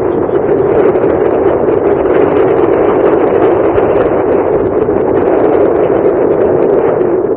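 Strong wind buffeting the camera's microphone: a loud, rough, unsteady rushing noise.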